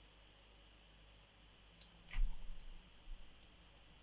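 Computer mouse clicking a few times in short sharp clicks, with a low thump about two seconds in.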